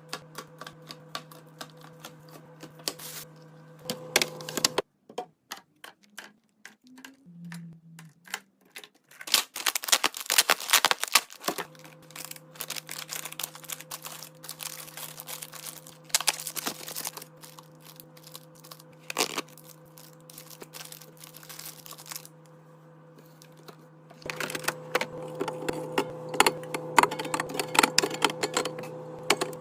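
Rapid clicks, taps and light clatter of small items and containers being handled and set down during restocking, over a steady hum. The clatter is busiest about a third of the way in and again near the end.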